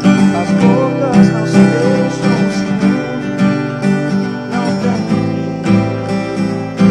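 Pop-rock music led by a strummed acoustic guitar, with a steady beat and a melody line.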